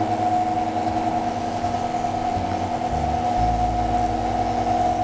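Stepper motors of a 6012 CNC router whining steadily as the gantry is jogged along the X axis with a handwheel pendant. Under the whine is a lower hum that shifts in level a few times.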